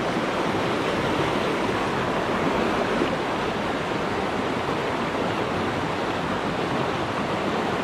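Shallow rocky mountain stream rushing over rocks and through riffles, a steady rush of water.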